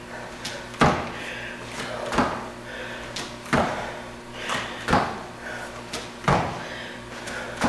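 Sneakered feet landing on foam floor mats during mountain climber hop switches. A sharp thud comes about every 1.4 seconds, with lighter footfalls in between.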